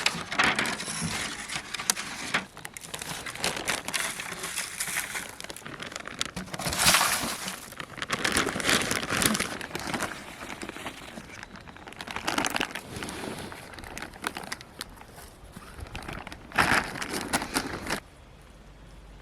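Seed packets rustling and crinkling as they are handled and sorted through, in uneven bursts that stop shortly before the end.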